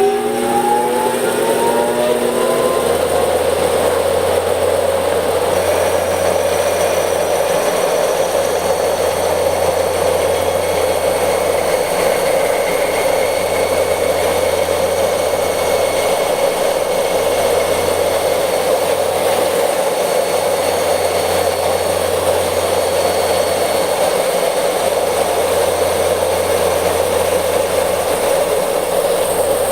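Large bandsaw running up to speed after being switched on. A rising whine levels off a couple of seconds in, and the saw then runs steadily at full speed.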